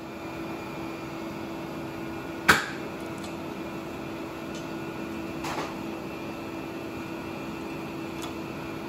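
Steady background hum with a sharp metallic clink about two and a half seconds in and a softer one around five and a half seconds, as a hand tap is handled at a threaded hole in a steel caster plate.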